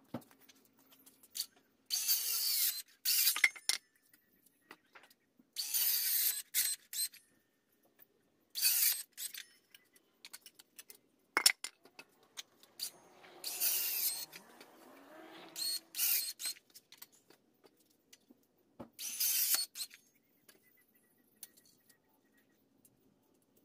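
Wooden boards being handled on metal sawhorses: five short scraping rubs of wood sliding, one longer and softer near the middle, with scattered sharp clicks and a single hard knock between them.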